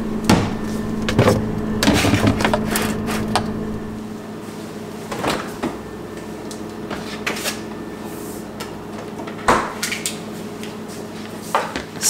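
A metal baking pan is set onto a refrigerator shelf and the refrigerator door is shut. There are several knocks and clunks, most in the first few seconds and one sharp knock later, over a low steady hum.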